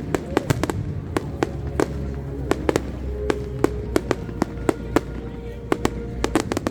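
A fireworks display: many sharp bangs and crackling pops at a quick, irregular rate over a steady low rumble.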